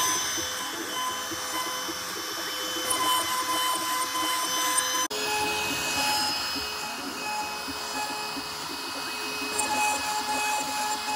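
CNC router spindle running steadily with a high whine while a V-bit carves an inlay pocket into a wooden cutting board. The sound changes abruptly about five seconds in, the whine settling at slightly different pitches.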